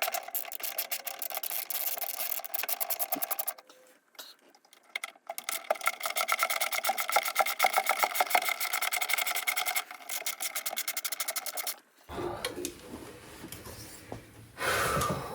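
Small power screwdriver whirring in two long runs with a fast, even clicking, backing screws out of a tube television chassis. After that come handling knocks as the chassis is shifted.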